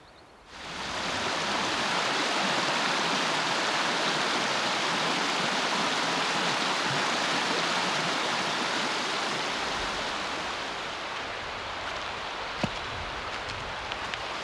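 Rushing water of a fast-flowing stream, a steady hiss that comes in abruptly about half a second in and eases slightly toward the end. A single sharp knock sounds near the end.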